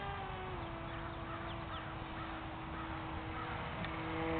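Small electric RC plane's 8 gram motor and propeller whining steadily in flight, its pitch dropping slightly about half a second in as the throttle eases. Near the end a second, lower tone joins and the sound grows louder.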